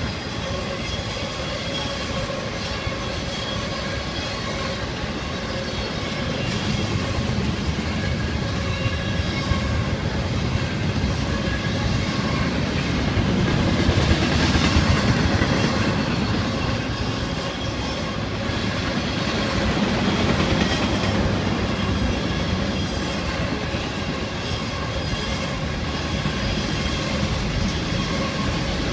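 Intermodal freight train's cars rolling past, a steady rumble and clatter of steel wheels on the rail with a faint steady ringing tone over it. It swells louder about halfway through and again a few seconds later.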